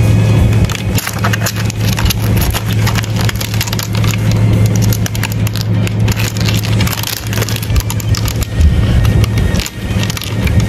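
Stag beetles' legs and mandibles scratching and clicking on a bark log, picked up close, with many quick irregular clicks over a steady low rumble.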